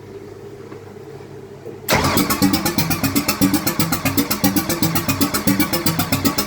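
Ford 302 V8 with a B303 roller cam cranked on the starter from about two seconds in, turning over in rapid, even pulses without firing or catching, even with starter fluid in the intake: a no-start, although the owner has found spark at a plug and power to the coil.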